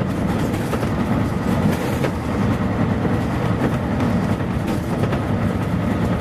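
Running sound of a 1989 Mitsubishi P-MP218M city bus heard inside the cabin: a steady engine and road rumble as it drives along.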